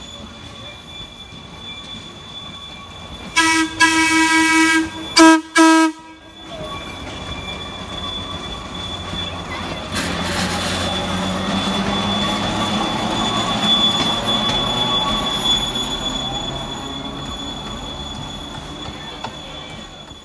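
Streetcar horn sounding one long blast and then two short ones. Then the Boston Elevated Railway streetcar rolls past, its steel wheels rumbling and clattering on the rails. The passing noise is loudest about two-thirds of the way through and fades near the end.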